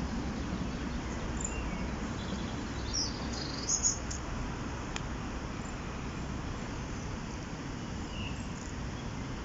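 A few short, high bird chirps, the most prominent cluster about three to four seconds in, over a steady rushing background.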